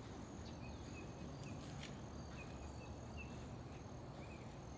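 Faint outdoor background hiss with a scatter of short, high chirps at irregular intervals, from insects or a small bird.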